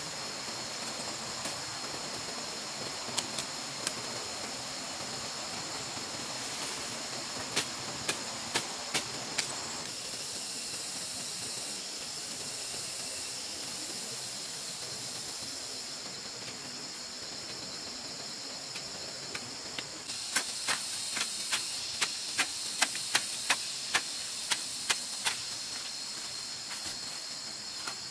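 Hoe blade striking into wet soil while a trench is dug: a string of sharp strikes in the first ten seconds and a faster run from about twenty seconds in. A steady high hiss runs underneath throughout.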